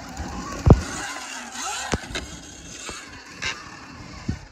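Sur-Ron electric dirt bike riding at a small dirt jump, its motor whining upward about a second and a half in. Several sharp thumps break in, the loudest under a second in and another near two seconds.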